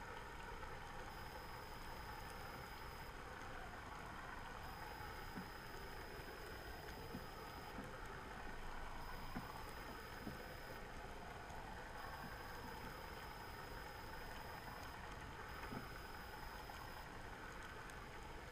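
Steady underwater background noise heard through a submerged camera, a constant hiss and rumble with a faint high whine and a few scattered soft ticks.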